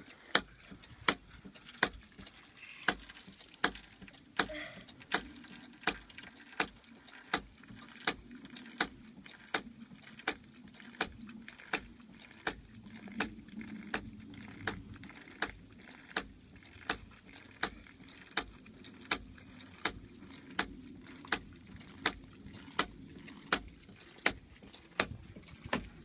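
Homemade hydraulic ram pump's waste valve clacking shut again and again in a steady rhythm, a little more than once a second: each slam is the water-hammer pulse that drives water up the delivery hose. A low wash of running water goes on underneath.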